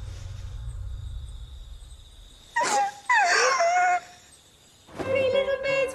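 A low music drone fades away, then about two and a half seconds in a sharp onset gives way to a wailing cry with a wavering pitch that lasts about a second and a half. Near the end, held singing notes begin.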